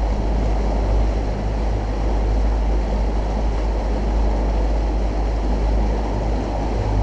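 Bass boat running at speed under outboard power: a steady, loud rumble of the outboard motor mixed with rushing wind and water.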